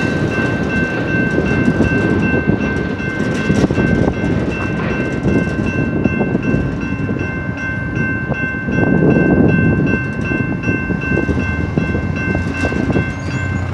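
Railroad crossing bell ringing steadily over the fading low rumble of a receding freight train.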